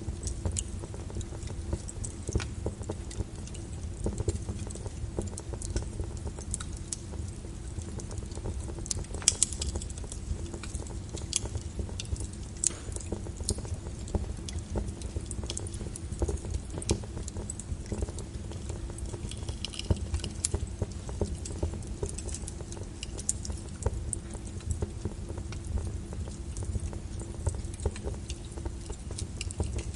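Wood fire burning in a fireplace: a steady low rumble of flame with frequent irregular crackles and pops from the burning logs. The sharpest pop comes about nine seconds in.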